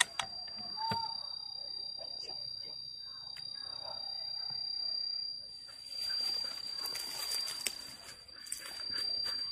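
A steady high-pitched insect drone in forest undergrowth, with a short bird chirp about a second in. From about halfway through, dry leaf litter rustles and crackles as something moves through it.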